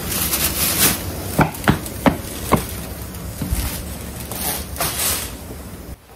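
Handling noise: jacket fabric rustling close to the phone's microphone, with four sharp knocks in quick succession about a second and a half in.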